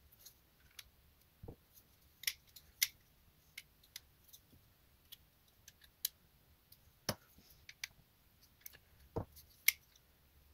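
Irregular sharp clicks, with a few duller knocks, from a Spyderco Paramilitary 2 folding knife handled on the bench while its pivot tension is being set: the blade is swung open and shut and the lock and detent snap.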